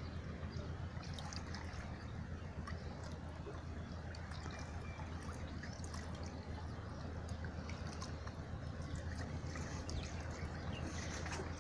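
Seawater lapping and trickling, with small splashes and drips over a steady low rumble.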